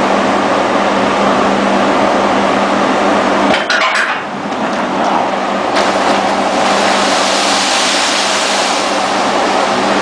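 Free-fall lifeboat released from its launch ramp on a ship: a short metallic clatter about three and a half seconds in as it lets go and slides off, then from about six seconds a loud rushing splash of spray as it hits the sea. A steady machinery hum lies under it all.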